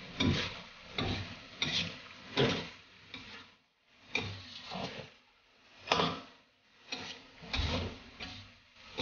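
A spatula scraping and knocking against a wok as squid and green onions are stir-fried and tossed in oyster sauce, in irregular strokes with short pauses between.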